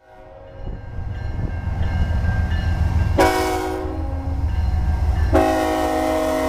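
Train's horn sounding two blasts, a short one about three seconds in and a longer one starting near the end, over the low rumble of the approaching train.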